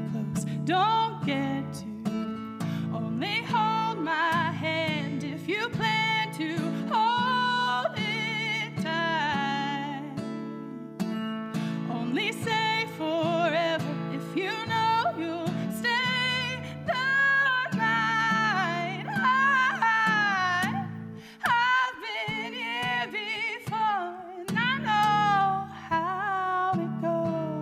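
A woman singing a song over guitar accompaniment, holding long notes with a wavering vibrato.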